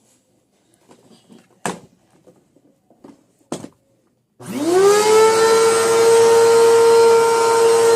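Two sharp clicks, then a vacuum cleaner switched on a little over four seconds in: its motor whine rises in pitch as it spins up and settles into a steady high running tone.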